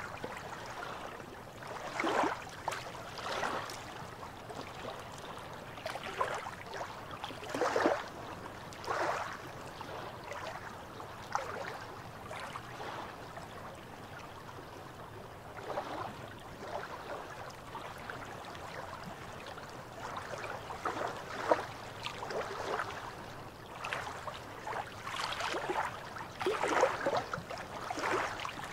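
Small waves lapping and splashing against shoreline rocks, in irregular short washes every second or few.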